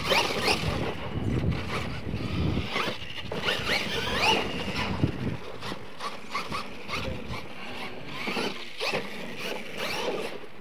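Radio-controlled monster truck driving hard on dirt: its motor and drivetrain whine up and down in pitch as the throttle is blipped, over tyre and chassis rumble. The rumble is heavier in the first half and eases off later.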